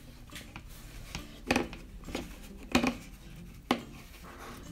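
Hands handling a plastic Play-Doh mold and tub: light plastic clicks and taps, with three sharper clacks about a second apart.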